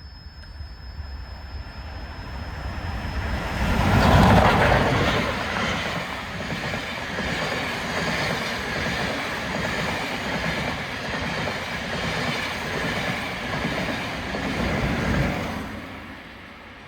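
A train passing close by: its rumble builds to its loudest about four seconds in, holds steady, swells again near the end and then fades away.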